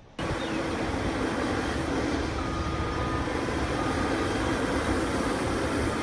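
Caterpillar 980K wheel loader at work, its diesel engine running steadily with a heavy noisy rumble and a faint thin whine that comes and goes; the sound cuts in suddenly just after the start.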